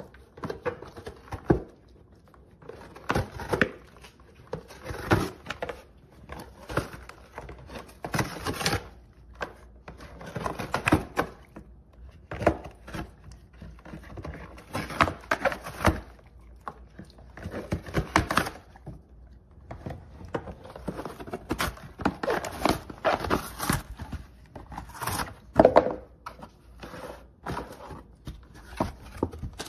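A dog tearing and chewing a cardboard LEGO box, in irregular ripping and crunching bursts with short pauses between, and knocks as it paws the box.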